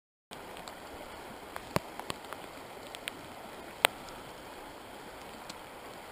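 Steady rush of a flowing stream, with a few sharp, brief ticks scattered through it.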